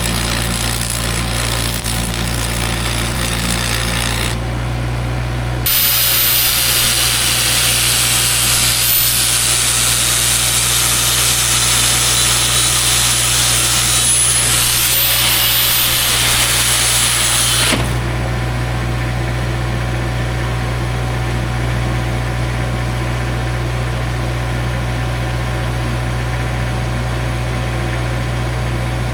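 An angle grinder runs for about twelve seconds, starting a few seconds in and cutting off suddenly, its high whine dipping and rising as it bears on the metal. A steady low engine drone runs underneath throughout.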